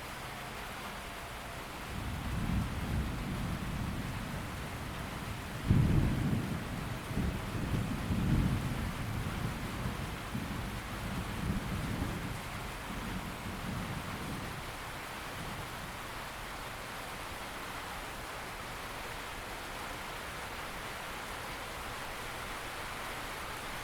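Steady rain with a roll of thunder: a deep rumble begins about two seconds in, turns suddenly loudest near six seconds, then rumbles on and fades out about halfway through while the rain keeps falling.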